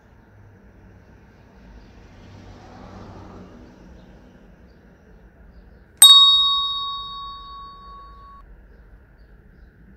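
A single bright, bell-like ding about six seconds in, ringing out over about two seconds. It is the notification-bell sound effect of a subscribe-button animation, laid over faint street background.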